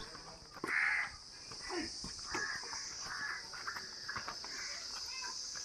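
Steady high-pitched insect drone, like crickets or cicadas, with short scattered calls over it. The loudest call comes about a second in.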